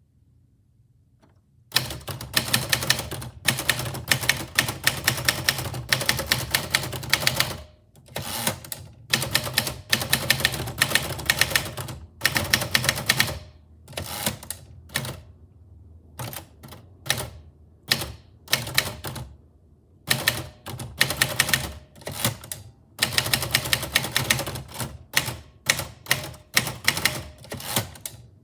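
Manual typewriter being typed on: rapid runs of key strikes in bursts of a second or two, broken by short pauses, starting about two seconds in.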